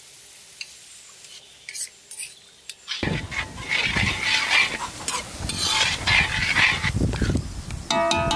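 A steel spoon stirring and scraping thick masala gravy in a kadai as it sizzles and bubbles. The first three seconds are fairly quiet with a few faint clicks. About three seconds in, the stirring and sizzling come in suddenly and loudly, with many sharp scrapes and clicks.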